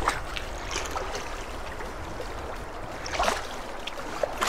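Water running and lapping steadily, with a few light splashes, the clearest about three seconds in.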